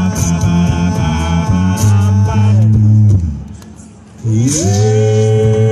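A cappella group singing with a deep vocal bass line and beatboxed percussion. The song breaks off about three seconds in, and after a short gap the voices slide up into a long held closing chord.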